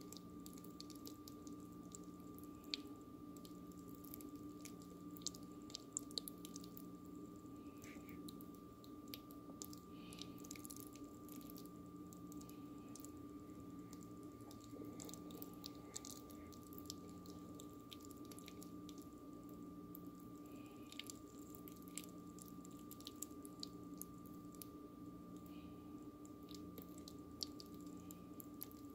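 Faint scattered clicks and soft crackles from a heap of freshly cooked potato pasta clumps, over a steady electrical hum with a low tone that pulses on and off about once a second.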